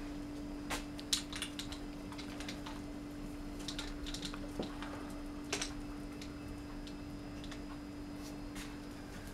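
Scattered light clicks and taps of small dogs' claws on a tiled floor as puppies scamper and play, with a sharper tap about a second in.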